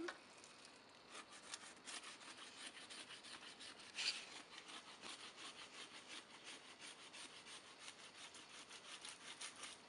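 Pocket knife blade scraping along a thin wooden stick, whittling off bark and wood in quick, faint strokes several times a second, with one louder stroke about four seconds in.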